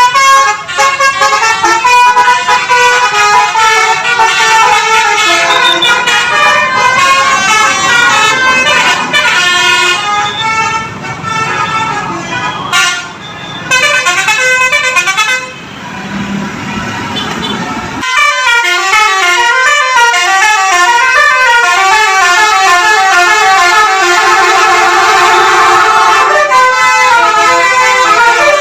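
Basuri telolet multi-tone bus horn playing quick melodic sequences of stepped, stacked horn notes, with a low vehicle rumble beneath for the first part. Later the notes carry on alone in a fast, repeating jingle.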